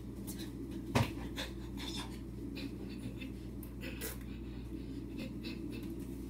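Scattered rustling and light footfalls of a person dancing, with one sharper thump about a second in, over a steady low hum.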